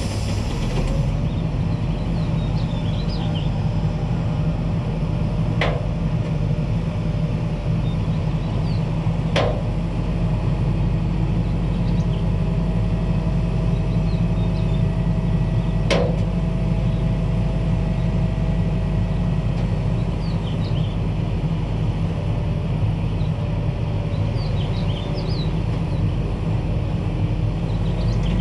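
Dump truck's diesel engine running steadily while its hydraulic hoist raises the loaded bed. Three sharp knocks sound a few seconds apart in the first half.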